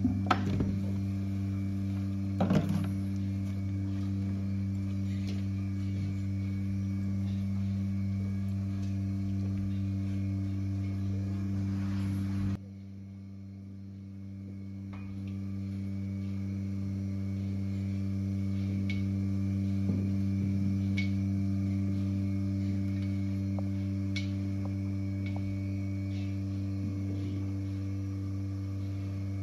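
Steady electric mains-type hum of barn equipment, dropping suddenly about halfway through and swelling back over a few seconds. Two sharp knocks in the first few seconds.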